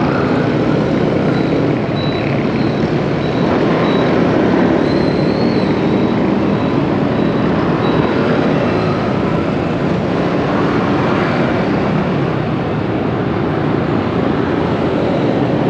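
Steady street traffic noise, mostly motorbike engines running, heard while moving through busy city streets.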